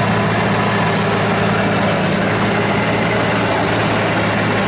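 Crawler dozer's diesel engine running with a steady drone as the machine tracks slowly past. One of its bottom rollers is squeaking pretty bad, which may be the worn-out track rails rubbing on it.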